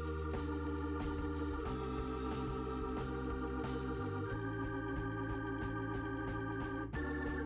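Music: held organ-like chords that change every two or three seconds over a pulsing low bass line.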